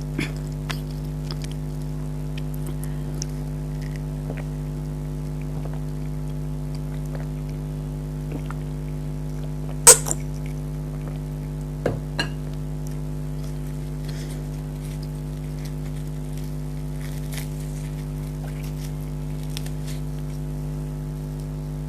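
Close-up eating sounds: chewing and small mouth clicks, with one sharp click about ten seconds in and two more around twelve seconds, over a steady low hum.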